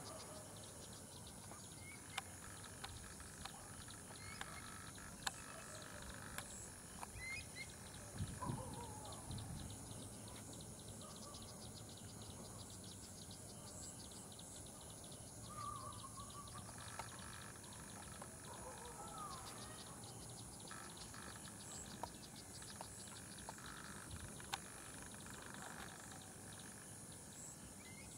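Natural ambience of insects: a steady high-pitched buzz with rapid ticking trills, with a few short bird calls and occasional sharp clicks.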